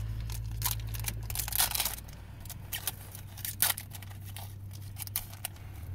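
Foil wrapper of a Pokémon trading card booster pack being torn open and crinkled in the hands, in a run of short scratchy crackles that are densest in the first two seconds. A steady low hum runs underneath.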